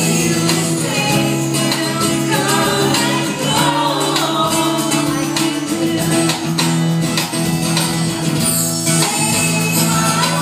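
Live acoustic band: a woman singing into a microphone over strummed acoustic guitar, with light percussion keeping a steady beat.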